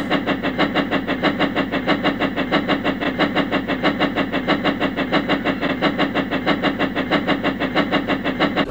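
Steam locomotive chuffing fast and evenly, about six puffs a second, as an engine runs at speed with a train of trucks.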